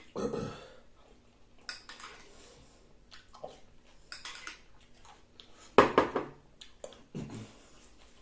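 Eating at a table: a fork clicking and scraping in a bowl of tomato salad, with chewing between. Several separate knocks, the loudest about six seconds in, as the bowl is set down on the wooden table.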